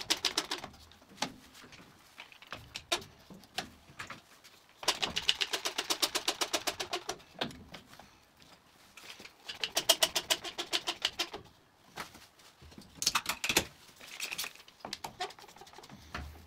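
Irwin Quick-Grip bar clamps being tightened across a glued-up wooden panel: three runs of rapid ratcheting clicks, about ten a second, as the trigger handles are pumped, with single clacks of clamps being set down between them.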